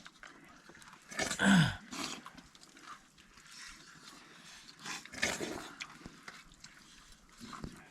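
An animal calling: one loud cry falling in pitch about a second and a half in, and a weaker call around five seconds, over faint low clatter.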